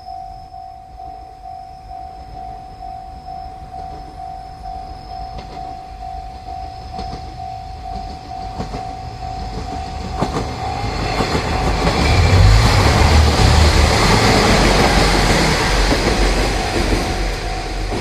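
Level-crossing warning bell ringing in steady pulses as a 1200-series diesel railcar approaches and passes. Wheel clicks over the rail joints come from about five seconds in, then engine rumble and rail noise build from about ten seconds in and are loudest midway through the second half. The bell stops near the end.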